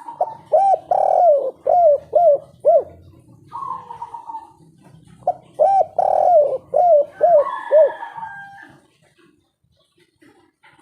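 Spotted dove (tekukur) cooing in two phrases about five seconds apart, each a quick run of five or six rising-and-falling coos.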